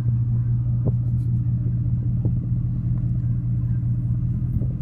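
Pickup truck driving slowly, its engine and road noise making a steady low drone.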